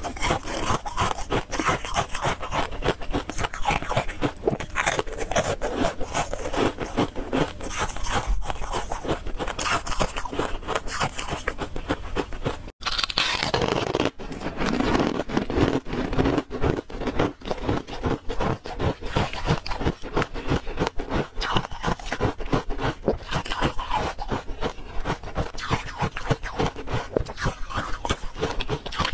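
Thin ice flakes being chewed: a dense, continuous run of crisp crunches and cracks, breaking off for an instant about halfway through.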